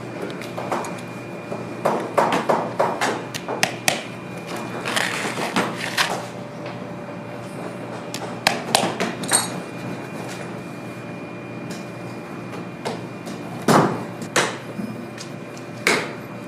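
Hand-lasting a leather boot upper with metal lasting pliers: irregular sharp clicks and taps as the pliers grip, pull and tap the leather over the last, with a louder knock near the end, over a steady background hum.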